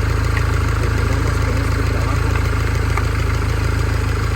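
Mini Cooper S R56's 1.6-litre turbocharged four-cylinder engine idling steadily, running on its newly replaced timing chain.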